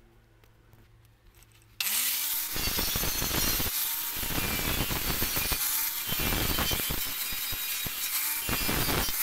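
Angle grinder switched on about two seconds in and spinning up, then grinding the rusty steel blade of a shovel with an abrasive disc. The motor's pitch sags and climbs back several times as the disc is pressed onto the metal and eased off.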